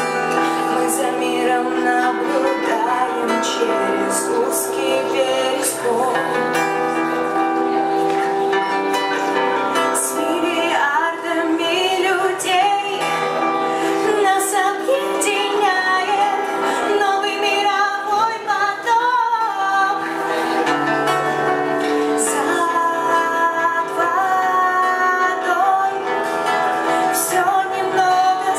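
A live band playing a song, with a woman singing over the instruments.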